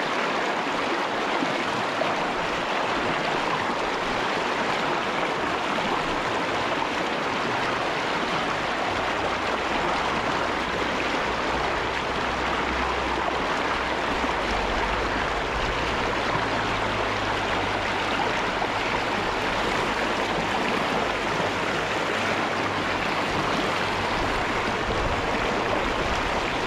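Shallow freestone stream rushing steadily over rocks and riffles.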